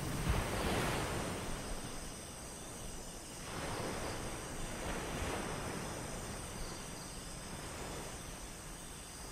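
Ocean surf washing onto a beach, a steady rush that swells and falls back in slow waves, the biggest swell near the start.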